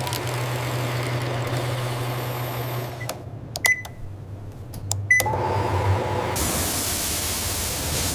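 Food-processing machinery running with a steady hum and hiss. About halfway through it drops out briefly for a few clicks and two short beeps, and near the end a brighter hiss comes in.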